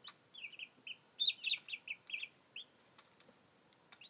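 Day-old Brahma chicks peeping: short, high-pitched peeps in quick succession, thickest in a flurry a little over a second in and thinning out near the end, with a few faint clicks.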